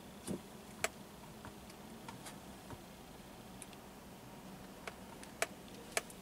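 A handful of sharp, irregular clicks and ticks, about eight, over a faint steady low hum inside a car cabin creeping slowly forward; the first near the start comes with a short dull thump.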